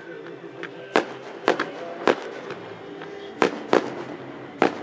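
Aerial fireworks shells bursting: six sharp booms at uneven intervals, two of them coming as a close pair, with fainter crackles in between.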